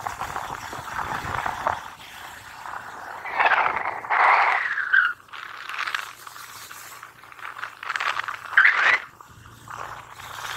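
Wind and road noise on the microphone of a moving motorcycle, rising and falling unevenly, with a few louder swells.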